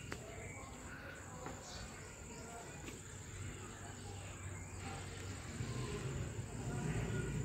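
Faint background noise: a steady high-pitched tone over a low rumble that grows louder near the end.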